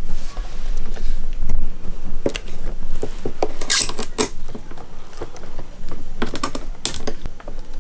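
Sharp clicks and taps of clear plastic being handled against an acrylic enclosure, coming in quick clusters about four seconds in and again near the end.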